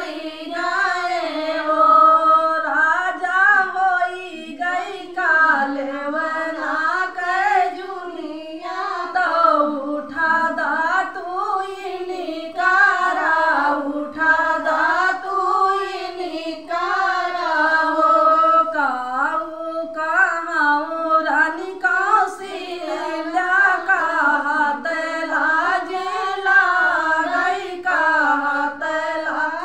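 Women singing a sohar, a North Indian folk song for a child's birth, in a continuous group melody with no instruments.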